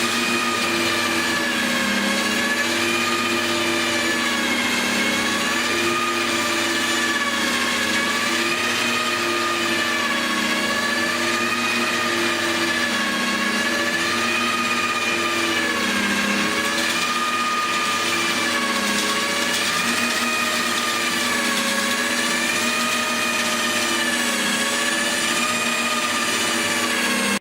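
Electric drill driving a concrete 3D printer's extruder, running steadily with a whine whose pitch wavers up and down about every two seconds. It cuts off abruptly at the end.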